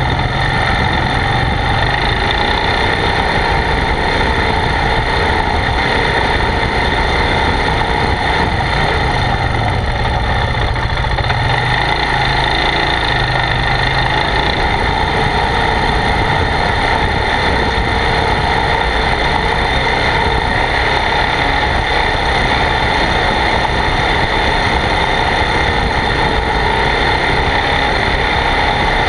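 ATV engine running steadily as the quad rides along a sandy dirt trail, loud and even throughout, with a slight change in its low note about halfway through.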